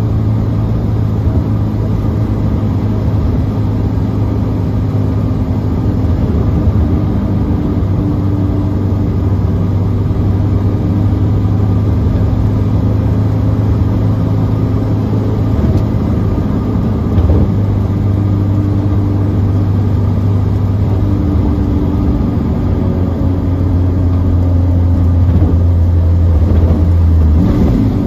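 Lotus Elise's Honda K20A2 2.0-litre four-cylinder engine running steadily while cruising, heard from inside the cabin along with road noise. It gets a little louder near the end, then the note drops as the car slows. The engine is freshly installed and not yet tuned.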